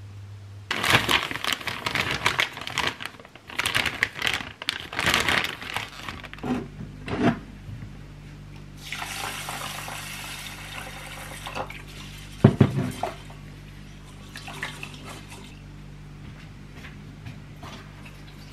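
Water poured from a filter jug into a rice cooker's metal inner pot, a steady pour lasting a couple of seconds about halfway through. Before it come several seconds of loud irregular clattering and rustling, and a sharp knock follows shortly after.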